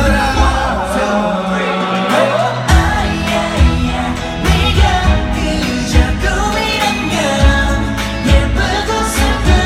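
Live K-pop performance in a concert arena: a singer's voice over a loud pop backing track. The bass drops out about a second in, then comes back with a heavy beat a little under three seconds in.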